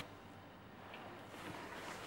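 Faint room tone: a low, even hiss right after background music cuts off abruptly.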